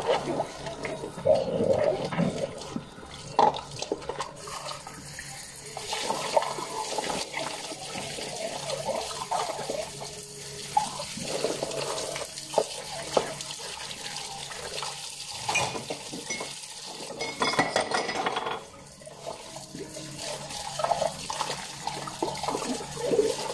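Tap water running into a stainless steel sink while glasses and a glass mug are rinsed by hand, with splashing and repeated short clinks and knocks of glassware.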